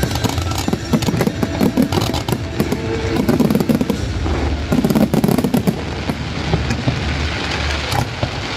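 A dense barrage of fireworks: many rapid, overlapping bangs and crackles over a continuous low rumble.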